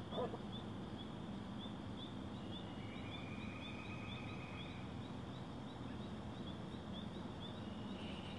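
Outdoor evening ambience: a small high chirp repeating steadily about twice a second, with a fainter, longer high note in the middle and a low steady hum beneath. A brief louder sound comes just after the start.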